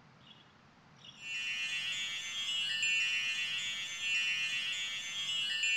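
Magical shimmering chime sound effect, many high bell-like tones ringing together, coming in about a second in after near silence and holding steady. It marks the appearance of a glowing spirit orb.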